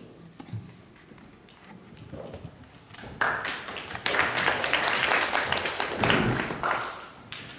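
Small audience clapping for about four seconds. It starts about three seconds in after a few scattered taps, with a low thump near its end, then dies away.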